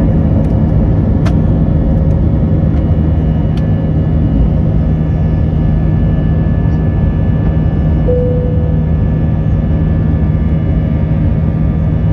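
Airbus A320-family airliner's jet engines at takeoff thrust, heard from inside the cabin as the plane lifts off and climbs: a loud, steady roar with a constant low hum. A couple of sharp clicks sound in the first few seconds.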